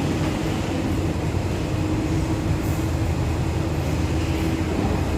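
Steady low machinery hum and rumble with one held tone, unchanging throughout.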